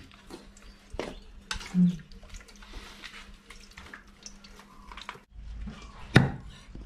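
Wet shredded coconut squelching as it is squeezed by hand in a strainer, the coconut milk dripping into an aluminium pot, with a few light knocks. A little past five seconds the sound changes, and about a second later a cleaver strikes once through raw chicken into a wooden chopping block.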